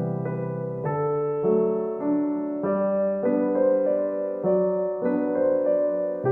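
Background piano music: soft notes played in an unhurried sequence over sustained low bass notes.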